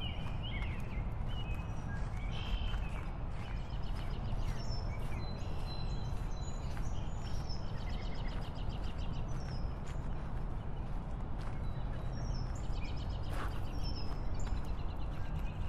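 Surf on a sandy beach: a steady low rumbling wash of waves. Birds chirp again and again above it.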